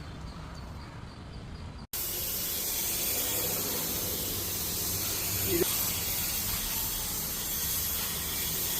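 Air spray gun hissing steadily as it sprays paint. The hiss cuts in abruptly about two seconds in, after a quieter low rumble.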